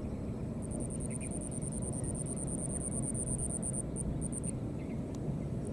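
An insect trilling, a rapid, even, very high-pitched pulsing of about eight pulses a second that stops about four seconds in after a few last short bursts. Under it runs a steady low rumble.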